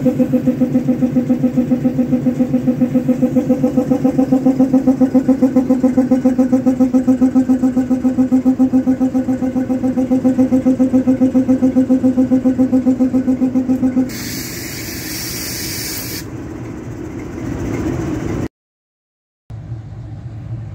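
The air compressor on Ferroban 3813, a diesel locomotive, is charging with a loud, rapidly pulsing, tuneful drone, which the owner calls melodic. It stops abruptly, and a hiss of air follows for about two seconds.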